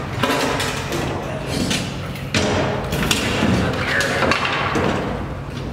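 Knocks and thuds of work on a pickup's rear bumper as it is being removed: several sharp strikes at irregular intervals over a steady low hum.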